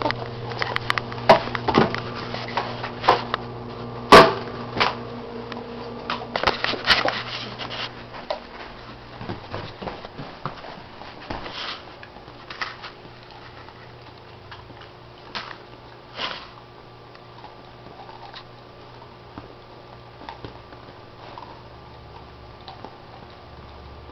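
Teething German shorthaired pointer puppy chewing and mouthing an ice cube: scattered sharp clicks and cracks, most frequent in the first eight seconds, with the loudest crack about four seconds in, and sparser clicks after that.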